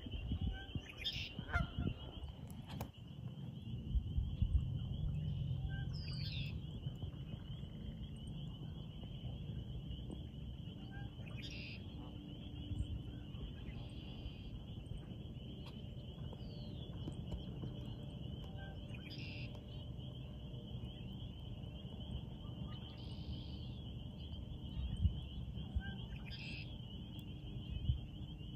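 Canada geese honking now and then, about five short calls spread through, over a steady high-pitched chorus and a low wind rumble.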